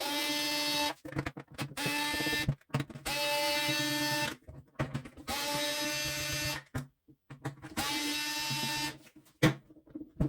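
Cordless electric screwdriver running in five short bursts of about a second each, undoing the screws in the mower's housing, with small clicks of handling between the bursts.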